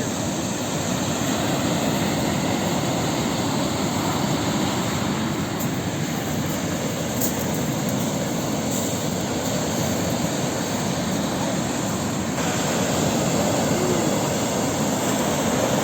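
Sea surf: a steady rush of breaking waves washing ashore.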